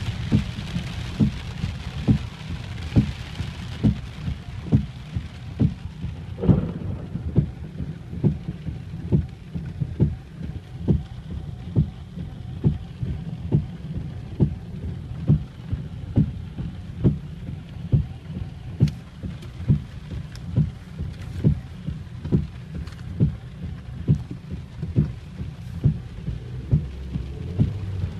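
Heavy rain on a car, heard from inside through the glass. The rain's hiss is strongest in the first few seconds. Over it, a low thump repeats steadily a little more than once a second.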